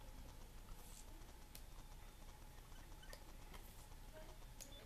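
Near silence: room tone with three faint short clicks about a second and a half apart.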